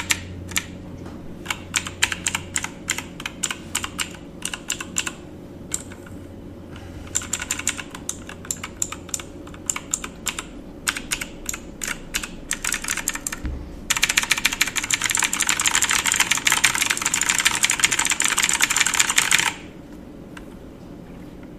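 Typing on a computer keyboard: irregular key clicks, then a louder stretch of very fast typing about two-thirds of the way in that stops suddenly, leaving only a faint steady hum.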